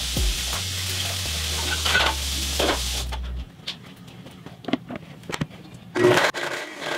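Background music with a stepping bass line cuts off about three seconds in, leaving a few light knocks. Near the end comes a loud plastic clunk as the lid is pressed onto a blender jar packed with roasted chiles.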